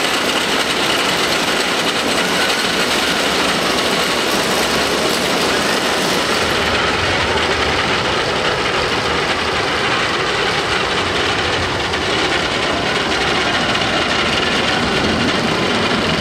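Wooden roller coaster trains climbing the chain lift hill: a steady clattering of the lift chain and wheels on the wooden track. About six seconds in, the sound turns duller and deeper.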